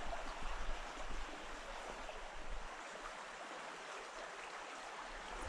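Small mountain creek flowing steadily over its bed, a constant rushing and trickling of water.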